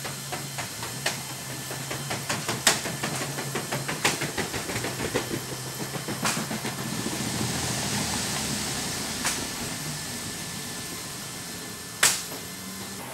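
A cargo pallet of wooden ordnance crates being pushed over the roller floor of a C-17 cargo hold: quick irregular clattering and knocking of rollers and load for several seconds, then a swell of hiss, and one loud sharp metal clack near the end, over a steady low hum.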